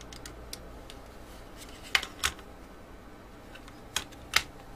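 Sharp clicks and taps of hard plastic kit parts being handled and screwed together, a few scattered clicks with the loudest pair about two seconds in and another pair near the end.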